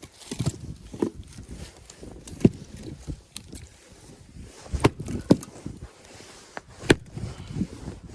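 Irregular knocks and clicks from hands-on work, about half a dozen spaced unevenly, with quieter rustling and handling noise between them.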